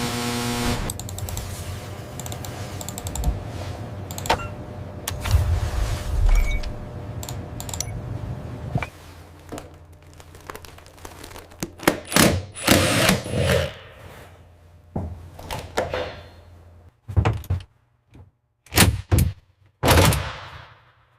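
Irregular clicks, knocks and thunks of hands-on work with tools and fittings, over a low steady hum for the first part. In the second half come several short, louder scraping or rushing bursts.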